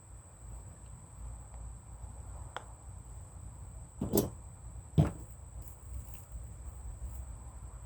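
Two knocks about a second apart, the first a little drawn out and the second sharp, with a faint click before them, over a low steady rumble.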